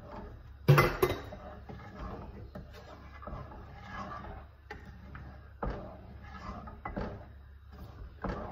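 Wooden spatula stirring thick gravy in a nonstick pot, scraping around the pan with several sharp knocks against the pot, the loudest about a second in.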